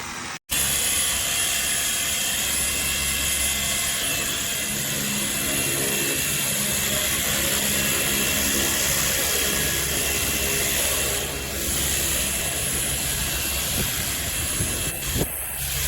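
Battery-powered handheld pressure washer running steadily: its motor and pump drone under an even hiss. It cuts in abruptly about half a second in.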